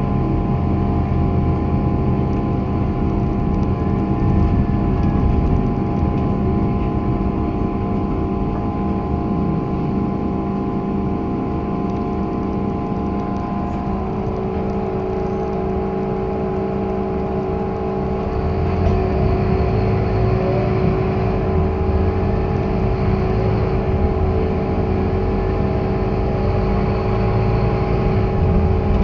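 Scania K230UB single-deck bus under way, heard from inside the passenger saloon: a steady engine rumble with several steady whining tones. The tones change about halfway through, and the low rumble grows louder later on as the engine pulls harder.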